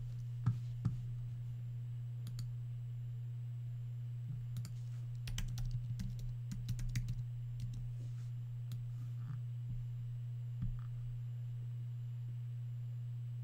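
Light clicks of a computer keyboard and mouse, scattered and bunched about five to seven seconds in, over a constant low hum.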